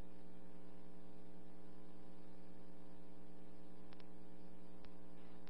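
Steady electrical mains hum with its overtones and light hiss on the dispatch radio recording while the channel is idle between transmissions, with a faint click about four seconds in.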